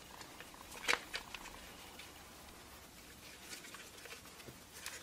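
Red rubber boot being stretched and worked onto a plastic multimeter case by hand: faint rubbing and light handling noises, with one sharper click about a second in.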